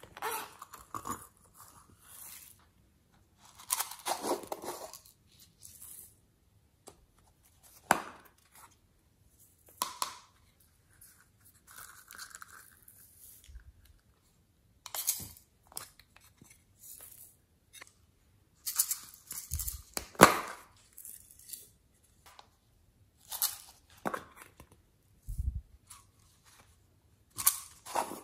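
Close-up handling of a zippered silicone coin purse and small plastic slime containers: a zip being pulled, then irregular clicks, taps, rustles and scrapes. Several sharper clicks stand out, and there are a couple of dull low thumps.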